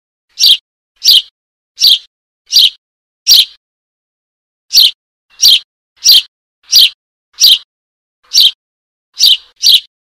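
Eurasian tree sparrow chick giving begging calls to its parent: short, high chirps repeated about every 0.7 seconds, thirteen in all, with a pause of over a second near the middle.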